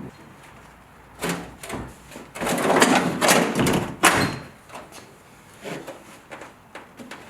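A run of knocks, thuds and scraping from hand work on the truck bed's sheet metal, densest between about two and four seconds in, then a few fainter knocks.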